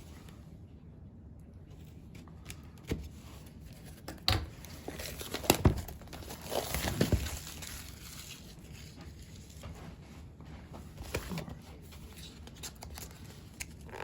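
Product box and its plastic seal being handled and opened by hand: scattered taps and clicks with crinkling and tearing, busiest around the middle.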